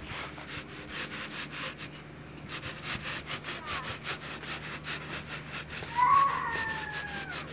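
Rhythmic rasping scrapes, about four a second, of a steel block mould being worked against lightweight concrete. About six seconds in, a loud, high squeal, falling slightly, lasts about a second and a half.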